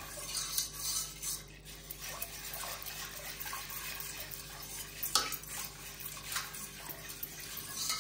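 Metal spoon stirring apple molasses and water in a stainless steel pot: the liquid swishing and sloshing, with the spoon knocking against the pot now and then, most sharply about five seconds in.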